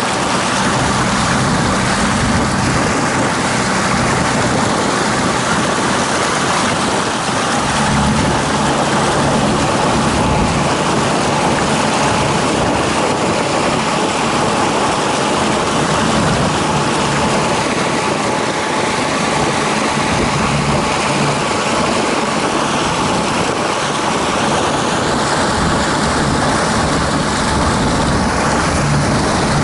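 Motor boat engine running steadily under way, with water rushing past the hulls.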